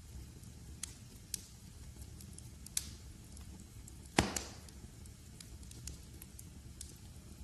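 Wood fire crackling in a fireplace: a low steady rumble of flames with scattered sharp crackles, a louder crack near the middle and one loud pop of a log about four seconds in.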